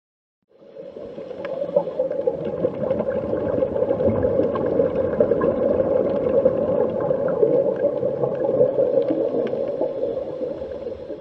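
Underwater ocean ambience sound effect: a steady watery noise that fades in from silence about half a second in.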